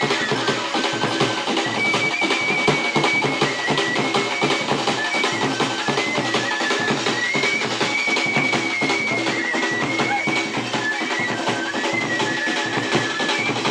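Dhol drums beaten in a fast, dense rhythm, with a high melody line held over them that steps between a few notes.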